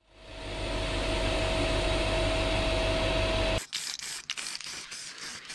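Air nozzle in an abrasive blasting cabinet hissing steadily over a low hum and a steady whistling tone, cut off abruptly about three and a half seconds in. Then an aerosol spray-paint can hisses in uneven spurts.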